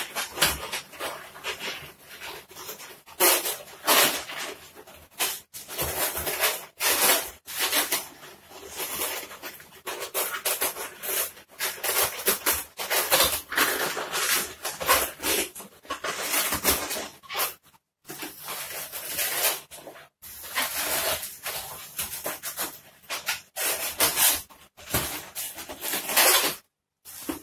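Long latex modelling balloons being twisted and bent by hand: a busy, irregular run of rubber squeaks and rubbing, rubber on rubber.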